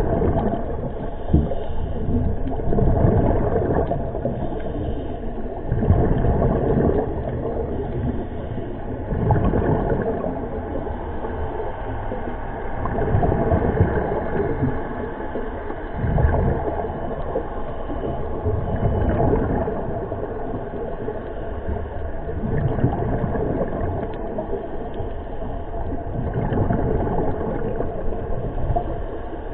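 Scuba diver breathing through a regulator underwater: a noisy rush of air and exhaled bubbles that swells and fades about every three seconds.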